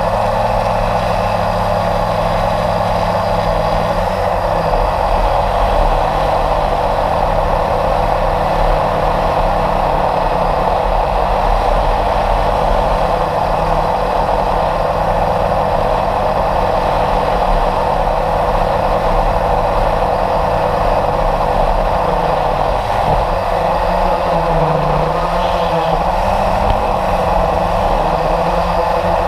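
Steady motor noise and rushing air from a camera riding on an RC model jet in flight. Under the noise a low hum shifts slightly in pitch as the throttle changes.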